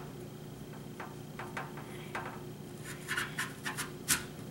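Serrated knife sawing into an apple in short scraping strokes, more rapid after about three seconds, over a steady low hum.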